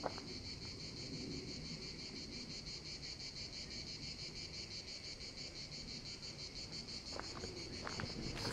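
Insects chirping in the surrounding vegetation: a steady, high, fast-pulsing trill that does not let up.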